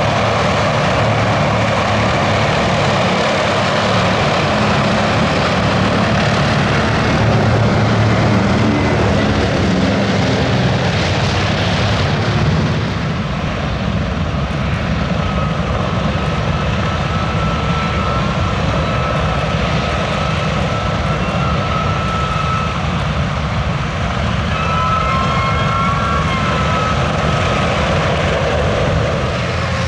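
Consolidated PBY-5A Catalina's twin radial piston engines running loud. About 13 seconds in, this gives way to the four radial piston engines of a Lockheed Super Constellation, with a thin high whine over them in the second half.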